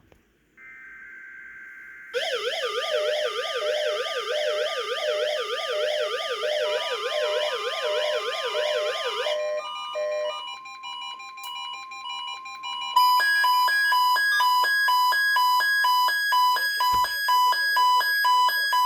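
Weather alert radios going off for a NOAA Weather Radio Required Weekly Test. A short high data-burst tone comes first. Then several radios sound warbling siren alarms together, a steady tone joins in, and from about two-thirds through rapid repeating two-tone beeps take over until they cut off at the end.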